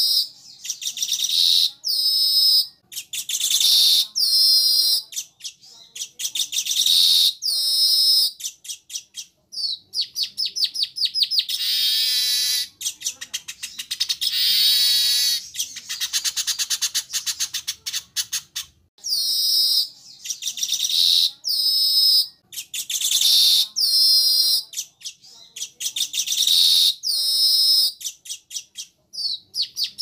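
Weaver birds calling: short, fast chattering phrases about a second long, repeated with brief gaps, with two longer runs of chatter midway.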